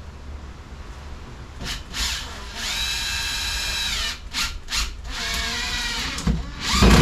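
Cordless drill driving screws into a plywood wall: a few short trigger blips, then two longer runs of motor whine, the pitch sagging as each screw bites. A thump near the end.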